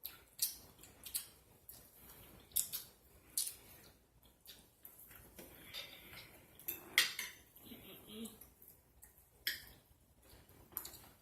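Eating utensils clinking against dishes in sharp, irregular taps, the loudest about seven seconds in.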